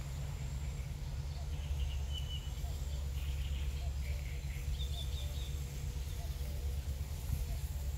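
Outdoor ambience: a steady low rumble with a few faint, brief bird chirps, about two and five seconds in.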